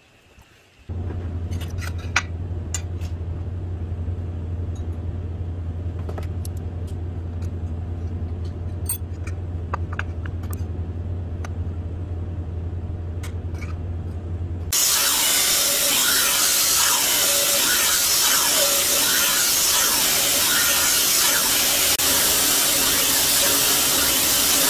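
A steady low motor hum with scattered light metallic clicks. About 15 seconds in, a belt grinder starts grinding the bevel of a 440C stainless steel knife blade held in a jig, and the sound jumps abruptly to a loud, even abrasive hiss that lasts to the end.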